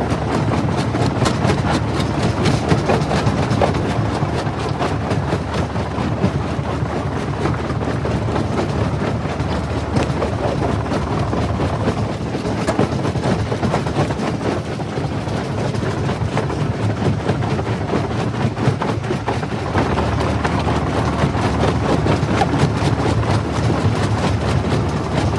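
Jaw rock crusher running and crushing stone: a steady heavy machine drone with a constant stream of cracking and clattering rock. It gets a little louder near the end.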